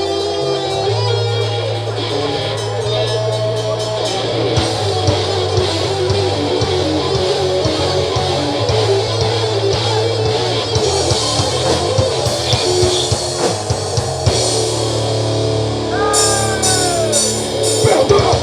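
Rock band playing an instrumental passage: electric guitar over bass and a drum kit, with the cymbals growing busier near the end.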